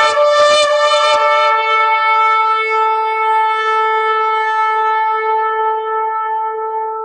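Shofar blown: a run of quick staccato blasts, about four a second, ends a little after a second in, and then one long held note sounds steadily and slowly fades toward the end.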